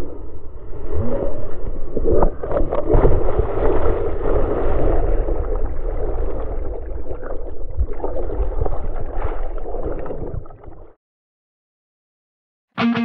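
Shorebreak waves breaking and whitewater churning around a camera in the surf, muffled, with several heavy thumps in the first few seconds. The water sound cuts off suddenly near the end.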